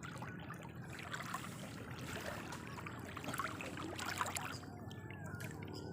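Faint water trickling and lapping, with scattered small ticks and splashes.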